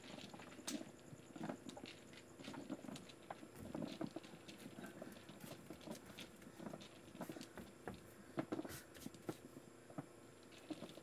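Faint, irregular rustling with scattered small taps and knocks.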